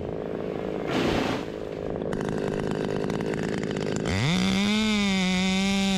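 Husqvarna top-handle chainsaw ticking over, then throttled up sharply about four seconds in and held at a steady, high full-throttle whine.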